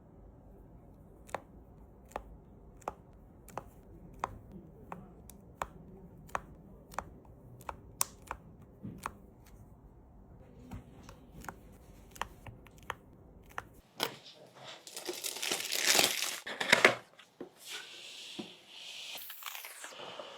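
Regular single clicks, about one and a half a second, over a low hum for most of the time. Then, from about two thirds of the way in, loud crinkling and tearing of packaging being torn open and crumpled.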